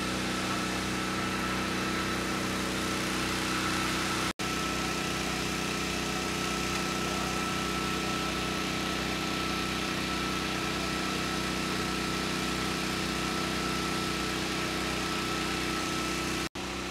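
A fire engine's engine running steadily at idle, with a thin steady whine above it. The sound cuts out for an instant twice, about four seconds in and near the end.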